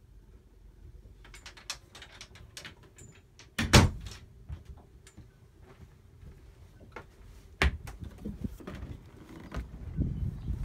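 Knocks and clicks of someone moving through a small sailboat cabin, with a sharp thump about four seconds in and another near eight seconds. A low wind rumble on the microphone starts near the end.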